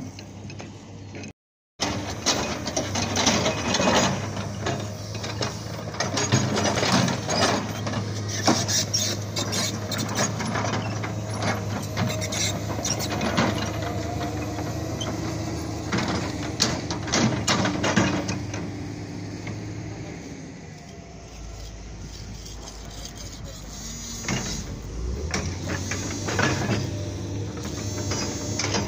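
Tracked hydraulic excavator's diesel engine running steadily, with repeated knocks and clanks as it works the soil; the engine sound falls away about twenty seconds in.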